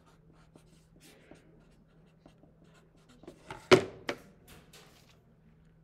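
Writing on paper by hand: faint scratching and light ticks, with a sharp knock a little past the middle, the loudest sound, and a few lighter taps around it. A faint steady low hum runs underneath.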